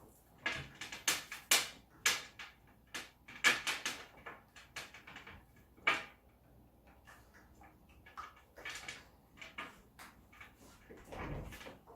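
Handling noises from unwrapping and handling a laptop's power cord and its Velcro cable tie: a run of sharp rustles and clicks, busiest in the first four seconds, with a few more later.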